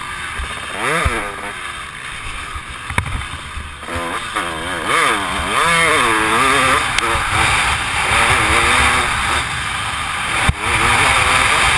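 Motocross dirt bike engine revving up and down repeatedly under throttle, heard from the rider's helmet with wind rushing over the microphone. A couple of sharp knocks cut through, one about three seconds in and one near the end.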